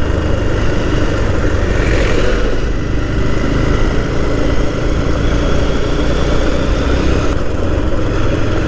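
A vehicle engine running steadily while moving along a road, with a continuous low rumble.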